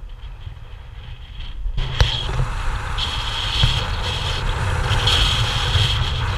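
Car driving along a road: a steady low rumble of engine and road noise that grows louder about two seconds in, with a single sharp click near that point.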